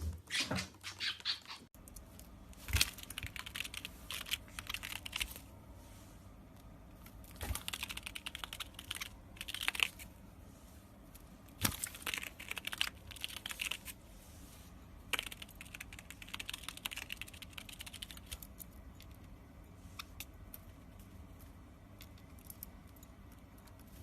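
Bursts of quick, crisp clicking and crunching, each lasting one to a few seconds with short pauses between: an animal chewing something crunchy.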